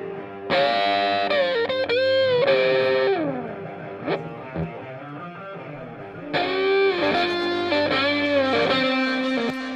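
Background music: an electric guitar with distortion and effects playing bending lead phrases, in two bursts.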